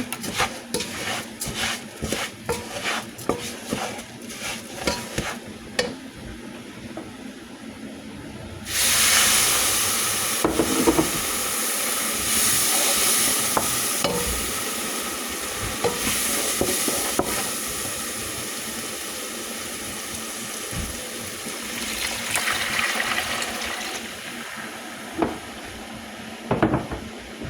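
A spoon stirring and scraping food in a pan with quick repeated strokes. About nine seconds in, a loud sizzle starts suddenly in the hot pan and slowly dies down, with occasional knocks of the spoon against the pan.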